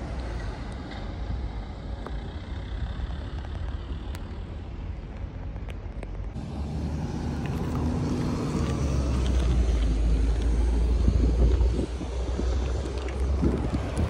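Outdoor road noise: a steady low rumble of traffic and wind that swells to its loudest about nine to twelve seconds in, as a motor vehicle passes.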